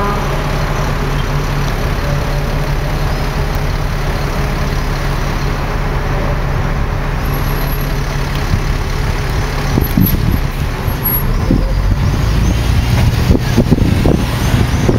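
Open-top double-decker bus running through city traffic, its engine a steady low hum with road noise around it. From about ten seconds in, wind buffets the microphone, growing stronger toward the end.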